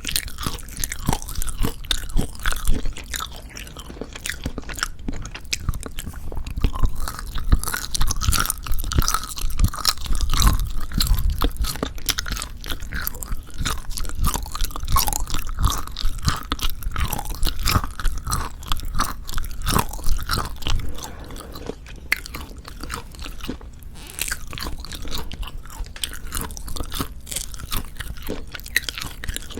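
Close-miked chewing of dried pork jerky: dense, irregular crackling and crunching with wet mouth sounds, continuous throughout.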